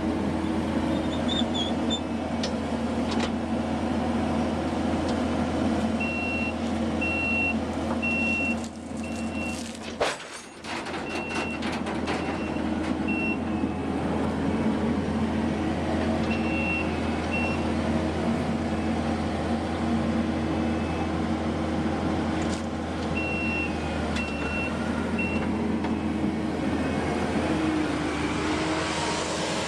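Diesel engine of a Kubota SVL75 compact track loader running steadily, with its backup alarm beeping in three separate spells as the machine reverses.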